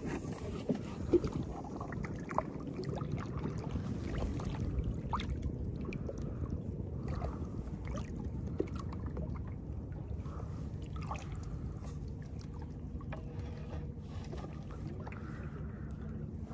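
A small wooden canoe being paddled: the paddle blade stroking through the water and water lapping at the hull over a steady low rumble, with scattered light knocks on the boat, the sharpest about a second in.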